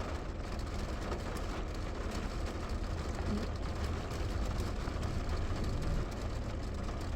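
Steady low hum of a parked car's engine idling, with no sharp sounds over it.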